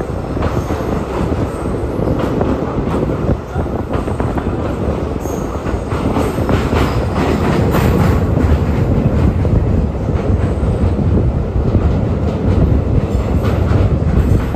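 Indian Railways train running over the New Pamban Bridge: a steady, loud rumble of wheels on rails, with irregular clicks and clatter from the track. It gets a little louder about halfway through.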